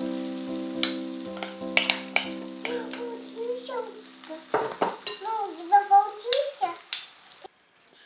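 Zucchini and potato batter sizzling in hot oil in a frying pan while a spoon spreads it, with sharp clicks and scrapes of the spoon against the pan. The sizzle cuts off about seven and a half seconds in. Background music with held notes plays under it.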